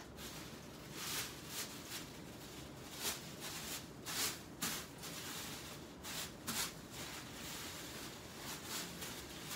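Sheets of glossy wrapping paper rustling and crinkling as they are handled and folded, in short irregular crackles.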